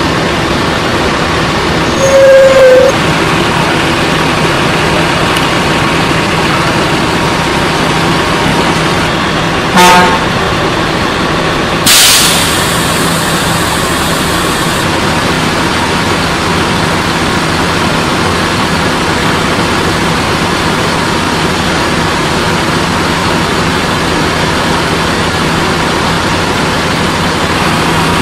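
Diesel coach engine idling steadily. A short horn blast sounds about two seconds in, a brief sharp sound comes about ten seconds in, and soon after a burst of air hiss, typical of a coach's air brakes, fades out over a few seconds.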